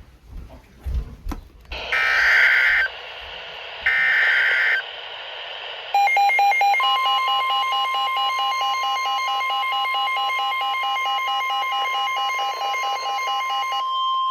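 NOAA Weather Radio alert coming through a receiver. Static opens up, then two short warbling data bursts of the SAME alert header play, about a second apart, and the long steady 1050 Hz warning alarm tone begins. A second electronic alarm beeps rapidly over the tone for several seconds.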